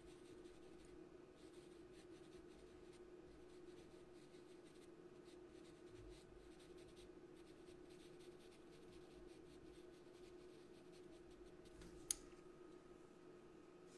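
Pastel pencil scratching faintly on paper in short, irregular strokes as colour is laid into a drawing, over a steady low hum. A single sharp click about twelve seconds in, after which the scratching stops.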